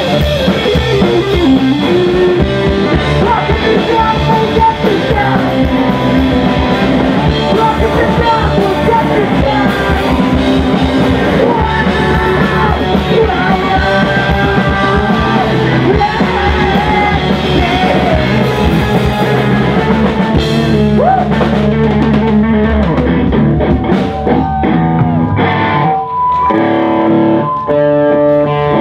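Live punk rock band playing: distorted electric guitar, bass and drum kit with a sung vocal. Near the end the drums drop out and the electric guitar plays on in separate chords.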